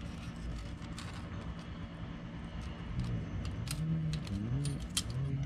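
Thin steel shims clicking and clinking lightly as they are handled and fitted onto the bracket screws at an axle spindle, over a low steady hum. A low wavering hum comes in about three seconds in.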